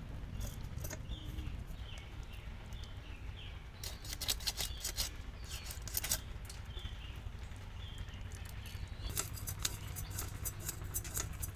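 Fish being scaled against the edge of a boti blade: two stretches of quick, rasping scrapes, one a few seconds in and another near the end. Birds chirp in between.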